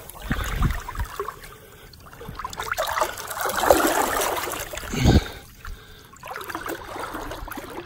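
Shallow water sloshing and splashing as a shark moves through it at the water's edge, with a couple of low thumps.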